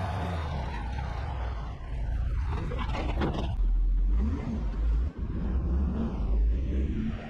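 A vehicle engine running and revving, with a short burst of clattering about three seconds in.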